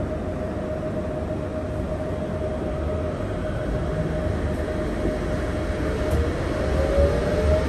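Inside a Yurikamome automated guideway train: a steady rumble and a steady tone while it stands, then the train starts to move about six seconds in, with a motor whine rising in pitch as it speeds up.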